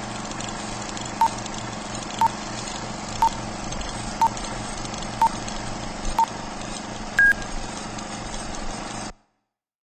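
Old-film countdown leader sound effect. A short beep sounds about once a second, six times, then a single higher-pitched beep, over a steady film-projector hiss and hum. All of it cuts off suddenly about nine seconds in.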